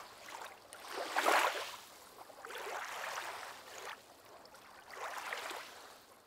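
Faint rushing noise that swells and fades three times, the loudest swell about a second in.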